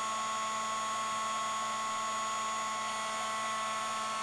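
Small electric craft heat tool blowing hot air, running steadily: an even fan hiss with a steady high whine.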